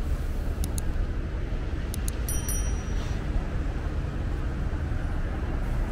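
City street traffic noise: a steady rumble of passing road vehicles, with a few faint high ticks about one and two seconds in.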